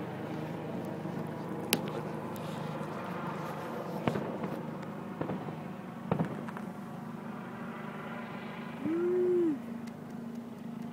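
Distant fireworks going off: three sharp bangs a couple of seconds apart over a steady low hum, with a short rising-and-falling tone near the end.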